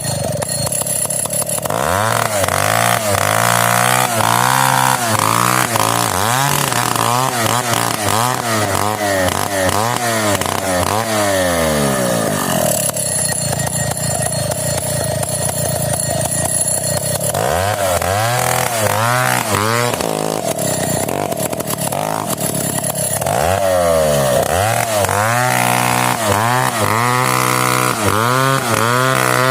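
Large 070 two-stroke chainsaw revving up and down over and over. It settles to a steadier run for a few seconds in the middle, then goes back to rising and falling revs.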